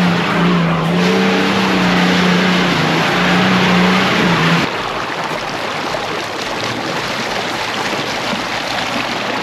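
Off-road 4x4 engine running hard, a steady drone that cuts off about four and a half seconds in, leaving a rushing noise.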